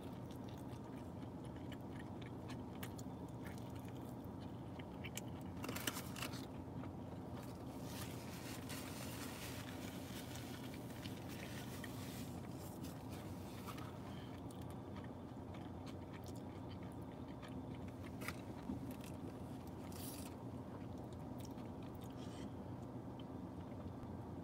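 Close-up chewing of a breakfast burrito: soft mouth sounds with many small wet clicks, and a few brief noisier moments, over a steady low hum.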